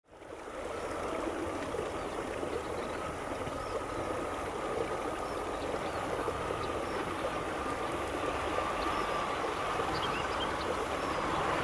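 Steady rushing rumble of a train running on the track, with a faint steady whine over it, slowly growing a little louder as it nears.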